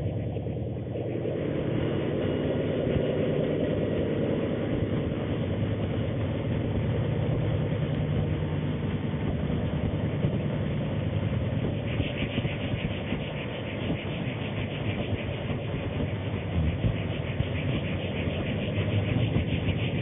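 Altered static noise effect: a dense, steady crackling hiss, heaviest in a low rumble, with a brighter fizz coming in about twelve seconds in.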